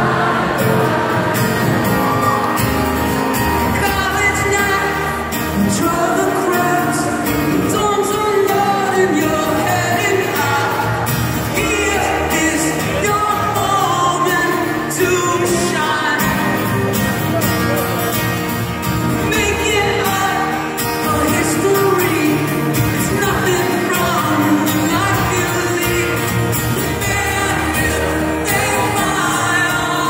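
Live solo acoustic set: a man singing to his own strummed acoustic guitar, amplified over a large venue's PA.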